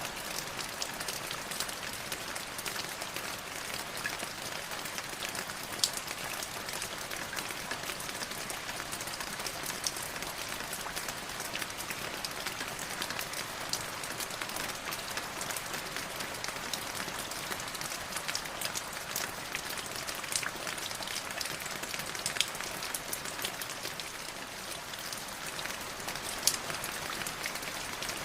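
Light drizzle pattering steadily, an even hiss of fine rain with many small drop ticks, a few of them louder and sharper.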